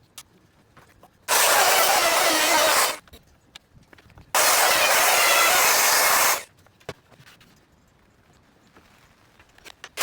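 Two loud bursts of hissing noise, each lasting about two seconds, starting and stopping abruptly, with a few faint clicks in the quiet between them.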